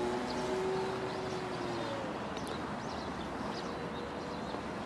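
Radio-controlled Yak-55 aerobatic model plane's propeller humming steadily as it descends nose-down in a spin. The hum fades away about two seconds in, leaving open-air noise with a few faint high chirps.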